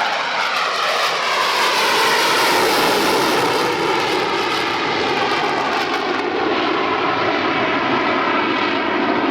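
F-14 Tomcat's twin jet engines running loud as the fighter makes a low pass with gear and tailhook down. The pitch falls near the start as it goes by, then a steady, loud jet noise follows.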